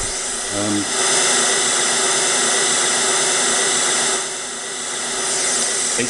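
Steady white-noise hiss from an Arduino Uno pseudorandom (linear-feedback shift register) noise generator, its two PWM outputs combined as an approximate 16-bit DAC running in fast PWM mode. Faint steady tones run through it, a very subtle hint of a cycle. It grows louder about a second in and drops back a little after four seconds.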